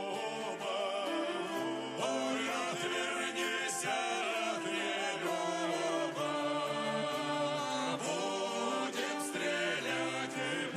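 Background music: a song with singing voices over a steady accompaniment.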